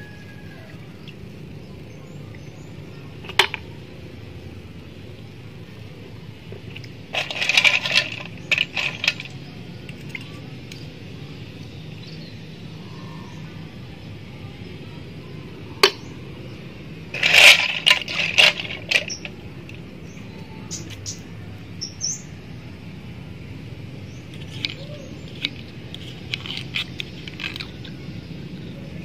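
A small knife clicking and scraping against snail shells as they are cut open, in short runs of rapid clicks with single sharp clicks between them.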